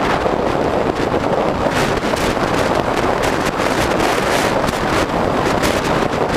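Wind buffeting the microphone of a camera on a fast-moving electric bike: a loud, steady rush broken by frequent short gusts.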